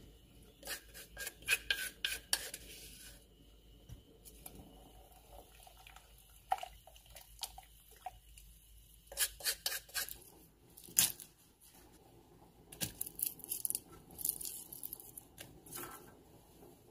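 Wooden spoon stirring chopped greenbrier leaves in liquid in a stainless-steel pot, with several bursts of light knocks and scrapes against the pot.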